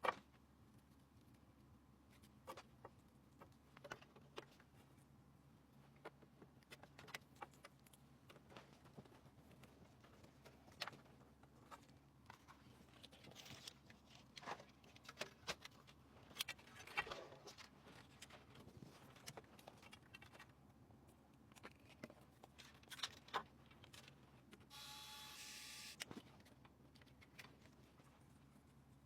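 Faint, scattered clicks and taps of small hard parts being handled, as when PC components are fitted together, over a low steady hum. A brief hiss lasting about a second comes near the end.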